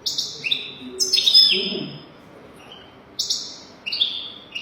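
European goldfinch singing in short bursts of quick, twittering notes: one phrase at the start, a longer one about a second in, and more from about three seconds on.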